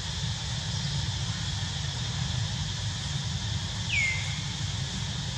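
Outdoor background of a steady low rumble and a steady high hiss, with one short downward-sweeping chirp about four seconds in.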